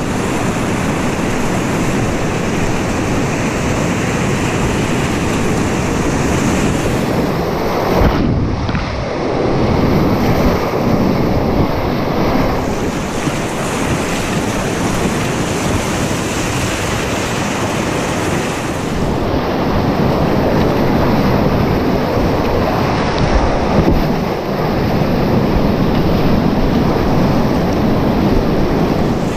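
Whitewater rapids rushing steadily and loudly around a kayak running through them, heard close to the water.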